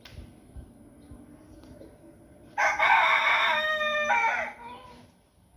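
Rooster crowing once: a single loud cock-a-doodle-doo starting about two and a half seconds in, held for about a second and a half before trailing off.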